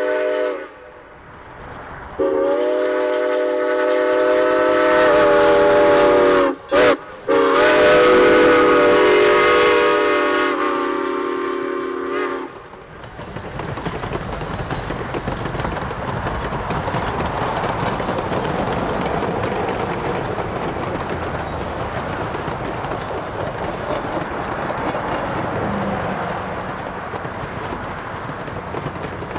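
Southern Pacific 18, a 3-foot narrow-gauge 4-6-0 steam locomotive, blows its steam whistle. One long blast ends, then come a long, a short and a long (the grade-crossing signal), the pitch dropping slightly as the engine passes. After that the passenger cars roll by steadily, their wheels clattering over the rail joints.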